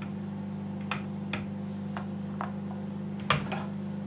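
A spoon clicking and scraping against the plastic pot of a Tupperware micro pressure cooker while cooked chickpeas are scooped out onto a chopping board: about six light clicks and taps, the loudest a little past three seconds in, over a steady low hum.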